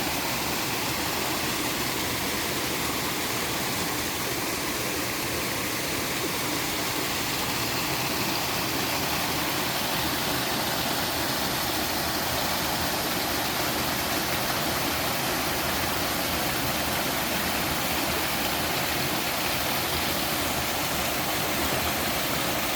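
Three-tiered mountain waterfall pouring steadily into its stream, a constant, even rushing of falling water.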